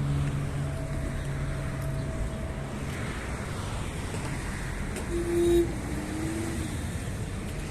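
Street traffic noise, with a passing vehicle's engine hum fading away over the first couple of seconds. About five seconds in there is a short steady tone, then a brief sliding one.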